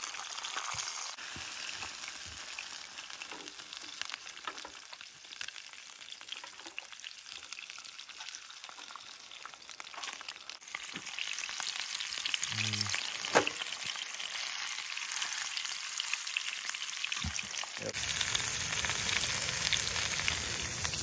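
Lake trout frying in a pan, a steady crackling sizzle that grows louder about halfway through. A single sharp tap, likely a utensil against the pan, stands out a little after the middle.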